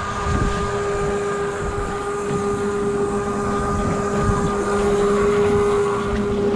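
Twin Mercury outboard motors running at a steady speed, a constant low hum, with water rushing past the hull.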